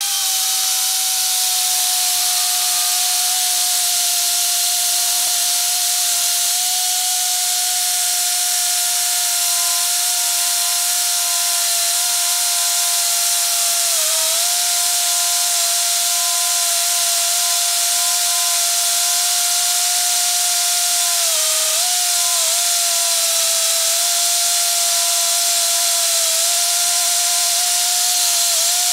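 Gerima SMA 40-P plate beveler running steadily as it mills a notch into the edge of a clamped metal plate: a steady high whine over a strong hiss. Its pitch sags briefly a few times, most clearly about halfway through and again about three-quarters through, as the cutter takes load.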